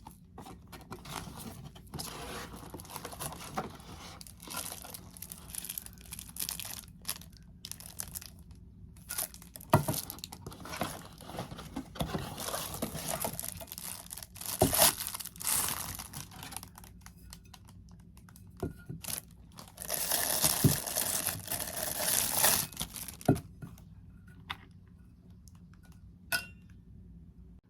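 Packaging crinkling and being torn open by hand in irregular rustling bursts, with a few sharp clicks and a longer stretch of crinkling about two-thirds of the way through.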